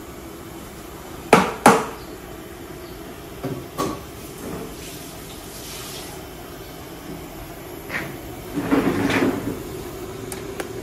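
Kitchen items being handled at a sink: two sharp knocks close together, then two lighter knocks, and later a short clattering scrape, over a steady low hum.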